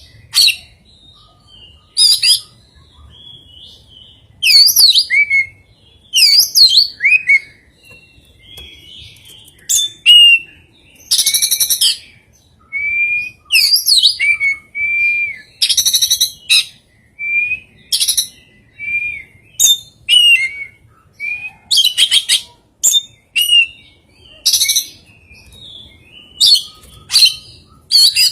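Oriental magpie-robin (kacer) singing a varied song of short phrases with gaps between them: clear whistled notes and slurs alternate with harsh, raspy buzzes. The song is mixed with mimicked phrases ('isian').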